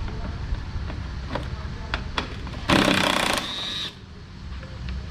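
Hand tools working on a pickup's headlamp mounting bolts: a few separate clicks, then a loud rushing noise about three seconds in that ends in a brief high whine, over a steady low rumble.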